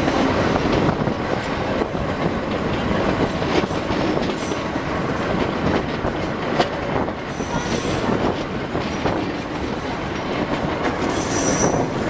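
Metre-gauge passenger train running: a steady rumble and clatter of wheels on rail with occasional sharp clicks. Brief high-pitched wheel squeal comes twice, around two-thirds of the way in and near the end, as the wheel flanges grind through curves.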